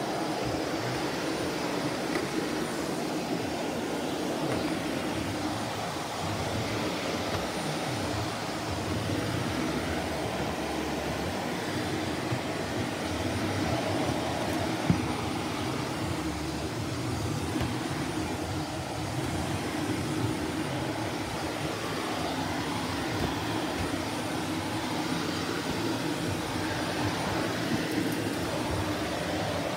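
Shark Navigator Lift-Away Professional upright vacuum cleaner running with a steady drone, with one sharp click about halfway through.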